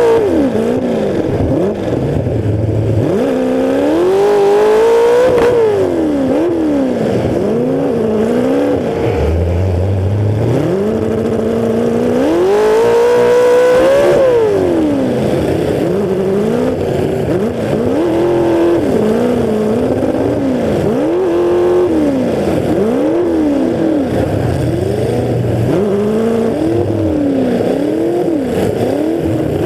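Demolition derby car engine running through open exhaust stacks that stand straight up through the hood, revved hard again and again. Its pitch climbs and drops every second or two, with two longer, higher pulls a few seconds in and around the middle.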